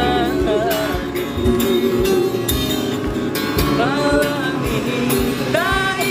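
Street buskers singing a song to their own acoustic guitar strumming.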